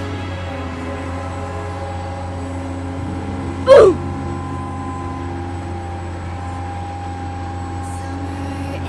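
A steady, engine-like drone, with a loud, short squeal falling in pitch a little under four seconds in.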